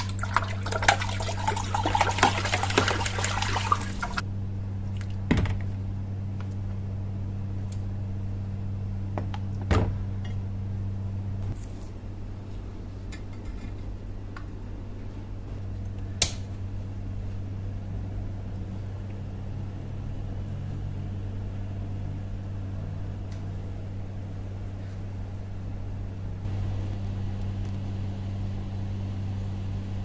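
Water in an electrolysis rust-removal bath sloshing and fizzing as a wooden stick stirs around a rusty hatchet head, for about the first four seconds. After that, a steady low hum with a few isolated sharp clicks.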